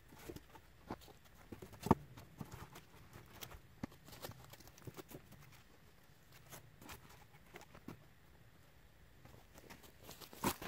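Wooden logs knocking and clunking against each other as they are laid onto a stacked log wall, in scattered light knocks, with a sharper knock about two seconds in and a louder clatter near the end.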